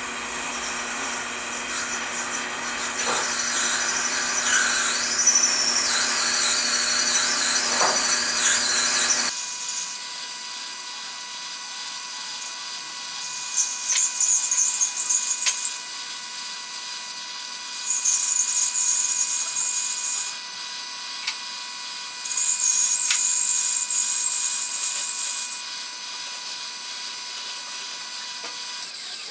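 Hand-held gas torch flame hissing while heating a brass part for silver soldering. The hiss flares up loudly three times in the second half, over steady faint tones.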